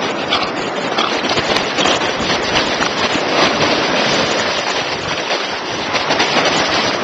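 Sea surf rushing and splashing in the shallows, a loud steady wash of water noise as waves break around the wading dog.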